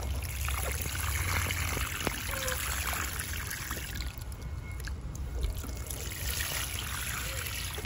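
Water pouring from a plastic watering can's rose head onto wet potting soil in a terracotta pot: a steady trickling splash.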